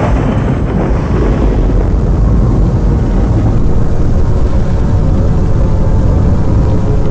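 Loud, continuous deep rumble from the sound effects of an animated battle between giant robots, like engines and explosions blended together.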